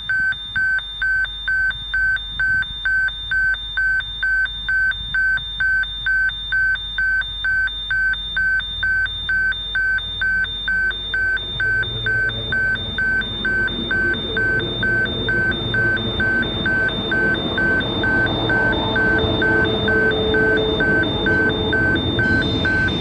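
Railway level crossing warning gong ringing as a steady electronic tone about twice a second. From about halfway a train's approach comes in under it, a rumble that grows steadily louder.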